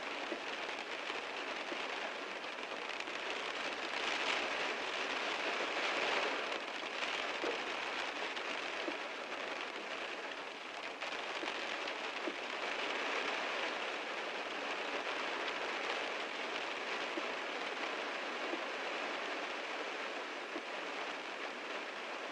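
Heavy rain drumming on a car's roof and windows, heard from inside: a dense, steady patter of drops, a little heavier a few seconds in.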